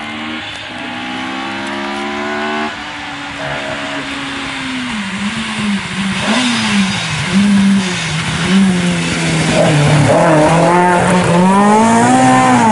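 Rally car approaching at speed on a wet stage road. Its engine climbs, changes gear about two and a half seconds in, then rises and falls again and again as the throttle is lifted and reapplied and gears are changed. It grows louder until it passes close near the end, with tyres hissing on the wet surface.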